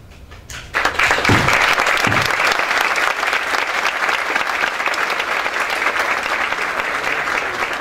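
Audience applauding, breaking out about a second in and holding steady.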